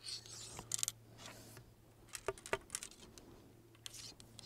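Ramrod sliding and knocking inside a muzzleloading double-barrel shotgun's barrel as a cork wad is seated over the shot charge: brief scrapes and several sharp metallic clinks, two of the loudest about two seconds in.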